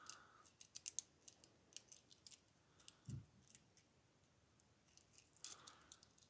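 Faint, irregular small metallic clicks and scrapes of a lock pick working the pin stacks inside the keyway of a heavy steel padlock held under tension, with one soft low thud about three seconds in.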